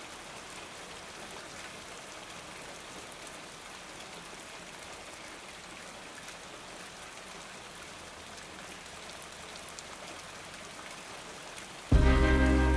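Rain falling steadily on a cabin roof, an even wash of sound with no change. Music comes in suddenly and much louder near the end.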